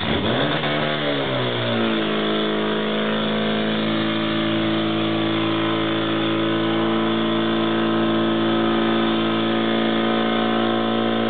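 Portable fire pump engine revving up over about two seconds, then held at high, steady revs while it drives water out through the hose lines to the nozzles; the revs drop near the end.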